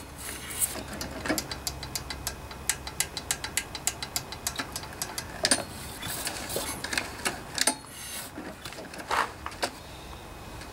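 Honda GC160 engine turned over slowly by its recoil pull rope with the valve cover off, giving light metallic clicking. A quick even run of about six clicks a second lasts a few seconds, then the clicks come scattered, with a few louder clacks.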